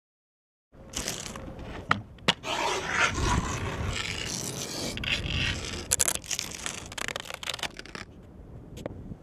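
Razor blade scraping and cutting through skateboard grip tape: a rough, gritty scrape that starts about a second in, with a few sharp clicks along the way.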